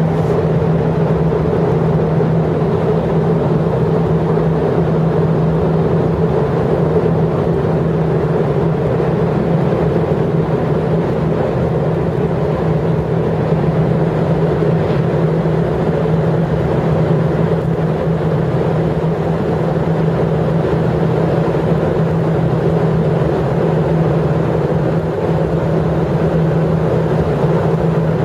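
Steady mechanical drone with a constant low hum and a second, higher tone above it.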